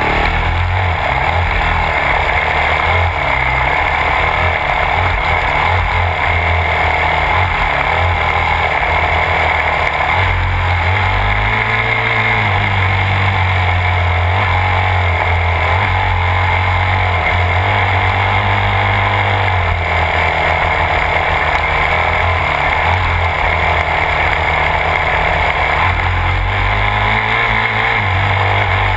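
Yamaha YZ250F four-stroke single-cylinder dirt bike engine under way, its note rising and falling as the throttle is worked, heard close up from a camera mounted on the bike, with a steady rush of noise over it.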